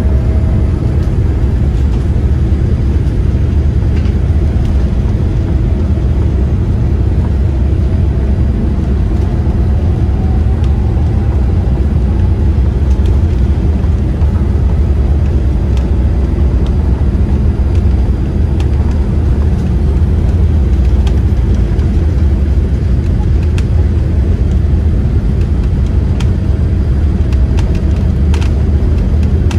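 Steady low rumble of a Boeing 787-8 airliner's cabin, engine and airflow noise, with a faint steady tone above it and a few light clicks.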